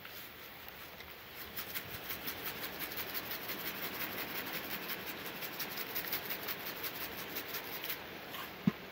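A shaker of dried chopped onion shaken rapidly over the meat: a steady run of gritty rattles, about five a second, that stops about a second before the end, followed by a single sharp tap.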